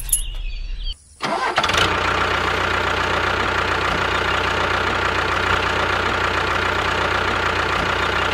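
Tractor engine running steadily at idle, cutting in about a second in after a brief gap.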